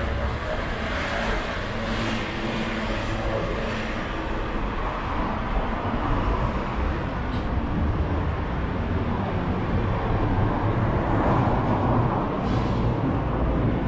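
Road traffic on a city street: a steady rumble of engines and tyres from passing vehicles, a little louder toward the end.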